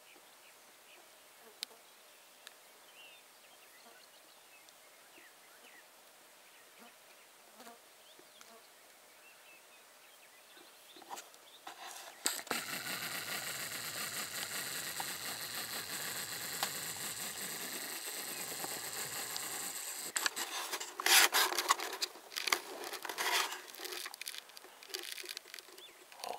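Quiet outdoor background for about ten seconds, then a steady buzz that starts about twelve seconds in and stops abruptly some seven seconds later. Loud rustling and knocks follow for a few seconds.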